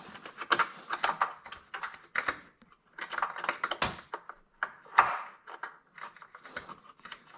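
Irregular small clicks, taps and scrapes of hands working an electrical connector onto its plug by feel, with one sharper click about five seconds in.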